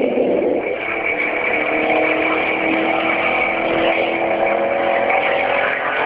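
Loud, steady droning groan with several held tones and a faint high whine above them, of the kind reported as the unexplained 'strange sky sound'.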